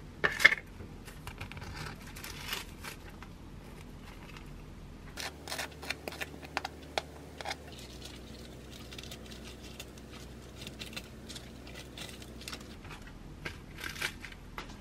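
Close-up kitchen handling sounds: a plastic tub of light cream cheese crinkles sharply as it is opened near the start. Then come scattered taps and scrapes as the cream cheese is spread on bagel halves, and fresh lettuce leaves rustle near the end.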